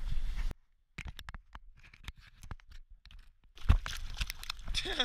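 A steady low rumble cuts off abruptly about half a second in. Scattered small clicks and crunches follow, then from a little past the middle a common carp splashes in the shallow water at the river's edge as it is let go, a run of sharp wet slaps and splashes.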